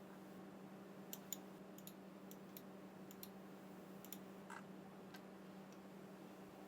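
Near silence: a faint steady low hum with a dozen faint, irregular clicks.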